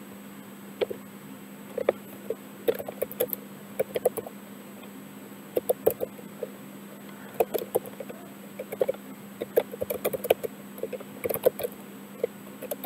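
Computer keyboard typing: irregular runs of key clicks, over a steady low hum.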